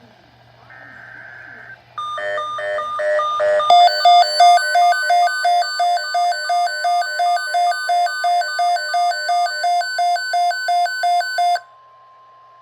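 Emergency alert broadcast tones. After a faint hum, a short run of rapidly alternating electronic beeps gives way to a loud, harsh beep repeating about three times a second for some eight seconds. It cuts off sharply, and a faint steady tone lingers briefly.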